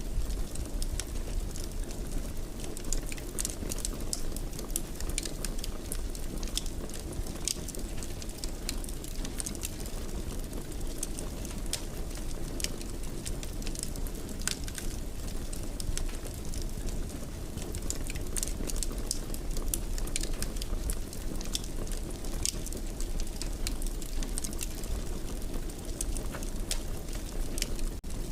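Wood fire crackling in a stone fireplace: frequent irregular pops and snaps over a steady low rumble of the flames.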